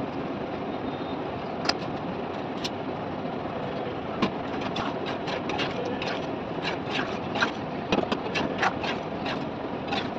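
A perforated metal ladle stirring thick curry in a pot, clicking and scraping against the pot many times in the second half, over a steady rushing background noise.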